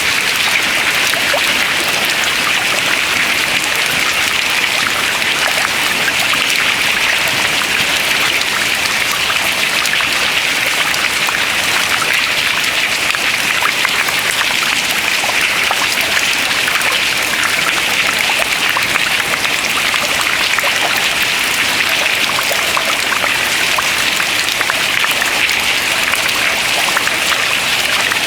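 Water dripping steadily into the river, many small drips at once over a continuous watery hiss.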